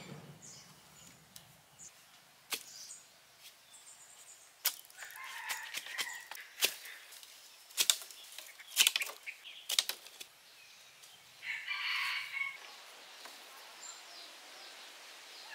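Wooden sticks knocking and clacking as they are handled and set in place: a dozen or so sharp, separate knocks, most of them in the middle of the stretch.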